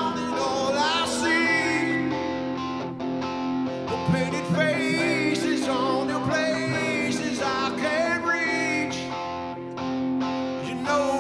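Live rock band playing: electric guitars over bass and drums, with a man singing.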